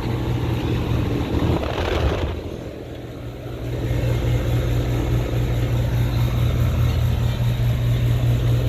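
Air conditioner units running with a steady low hum. A brief louder rush comes about two seconds in, then the sound dips for a second before the hum comes back louder and steady.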